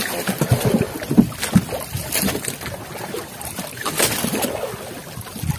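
Choppy sea water sloshing and slapping against the hull of a small fishing boat, with a few sharper slaps roughly every two seconds.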